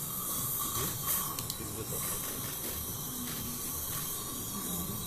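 A steady hiss of background noise runs throughout, with a low murmur beneath it and a couple of faint clicks about a second in.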